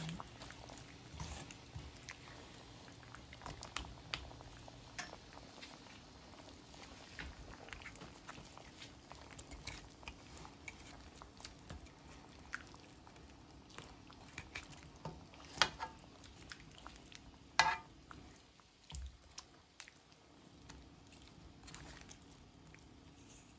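Chunks of pork being stirred and turned with a plastic spatula in a nonstick frying pan: irregular soft knocks and scrapes over a faint steady background, with two louder clicks about two-thirds of the way through.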